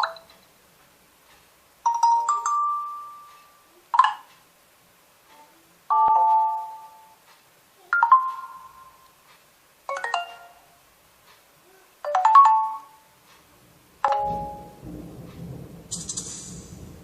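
Nokia 2.2 phone tones playing: short chime-like electronic notes, a new one about every two seconds, each dying away within a second or so. Near the end the notes stop and a faint hiss follows.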